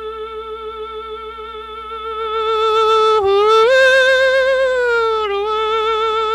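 A man's long yodelled cattle call, sung almost unaccompanied: one high held note with a slow vibrato. The note steps up a little about three seconds in and eases back down near the end.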